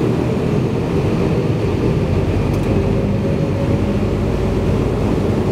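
Bombardier DHC-8-200 turboprop engine noise heard from inside the cabin: a steady low rumble, with a steady hum coming in about halfway through as the engine starts up.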